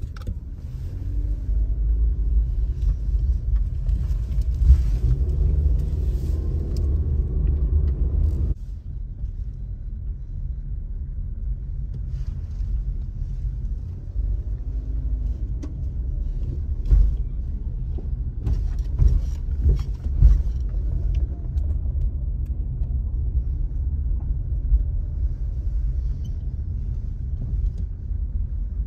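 A car driving, a steady low rumble of engine and road noise that drops suddenly about eight seconds in, with a few short knocks and clicks later on.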